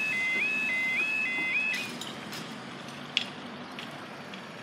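Level crossing audible warning alarm: a rising two-note yelp repeating a little under twice a second, which cuts off about two seconds in. A low rumble and a few sharp clicks follow.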